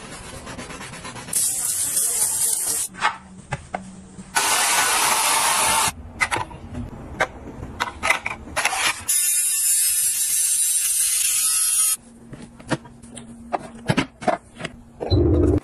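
A string of short handling sounds from plastic household gadgets: sharp clicks and taps as parts are fitted and handled, between several stretches of steady hiss lasting one to three seconds each.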